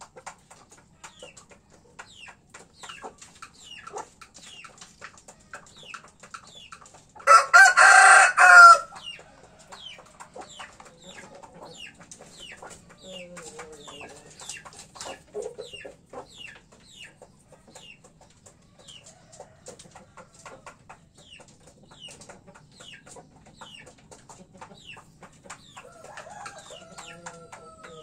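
A rooster crows once, loud, about seven seconds in, the call lasting about a second and a half. Around it, hens cluck softly now and then, and short high falling chirps repeat steadily, one or two a second.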